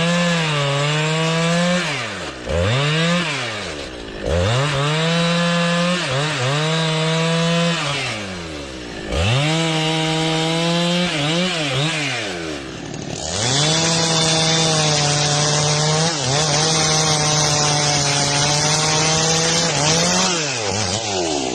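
Chainsaw running at high revs while cutting logs. Its engine pitch drops and climbs back several times in the first half. From about thirteen seconds in it runs steadily at full speed, with a hiss of the chain through the wood, before dipping once more near the end.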